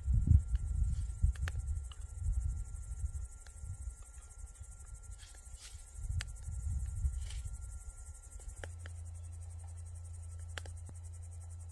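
Crickets chirping in a steady high-pitched buzz. Beneath it an uneven low rumble gives way, about eight and a half seconds in, to a steady low hum, with a few scattered clicks.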